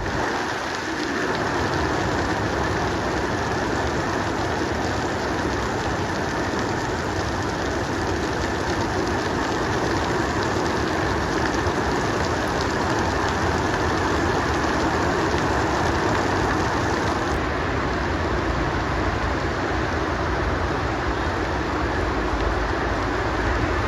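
Steady rain falling: an even, continuous hiss with no breaks.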